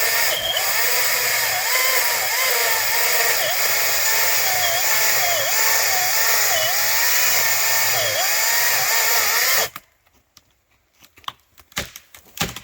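Echo DCS-2500T battery chainsaw cutting into a standing tree, its whine dipping and recovering again and again as the chain bites under load. The saw stops suddenly near the end, followed by a few sharp clicks.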